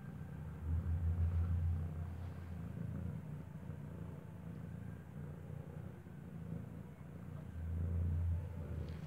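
Mother cat purring as she is stroked, a low steady rumble that swells louder about a second in and again near the end.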